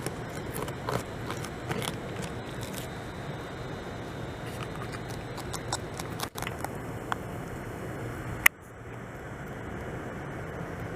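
Beaver gnawing bark off a log: scattered short crunching crackles and clicks over a steady background rumble, with one sharp loud click about eight seconds in.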